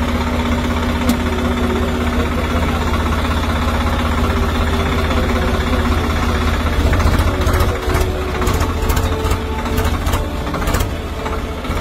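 Swaraj 855 tractor's three-cylinder diesel engine idling close by with a steady low chug, and a few light clicks in the second half.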